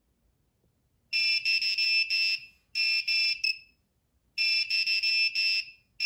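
Piezo buzzer on an Arduino RFID door lock beeping a high-pitched tone in rapid pulses, in three bursts with short gaps between them. It is the lock's access-granted signal after an authorised card is read.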